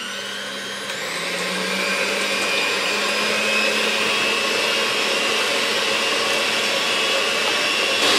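Perfezza electric hand mixer beating raw eggs in a stainless steel bowl: the motor whine climbs as it spins up, rises in pitch and gets louder again about a second in, then runs steadily.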